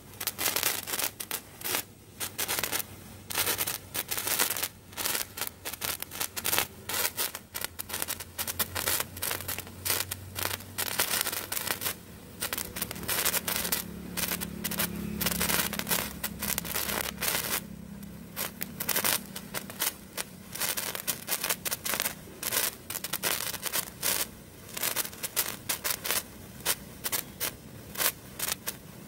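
A burning 15 cm colour sparkler crackling as it throws off sparks, a rapid, irregular stream of small sharp pops and fizzing.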